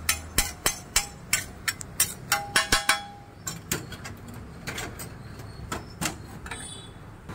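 Metal spatula striking and scraping a flat tawa griddle in quick, even clanks, about three or four a second, for roughly the first three seconds, one ringing briefly. After that only a few scattered clanks.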